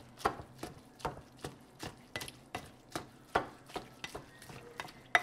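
A black plastic masher-chopper tool mashing meat and egg in a bowl, with short knocks about two or three times a second as it is pushed down against the bowl.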